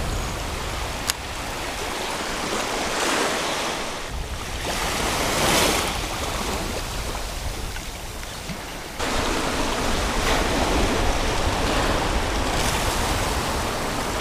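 Small waves washing up the sand and over lava rock and drawing back, the hiss of water rising and falling in surges. It grows suddenly louder about nine seconds in.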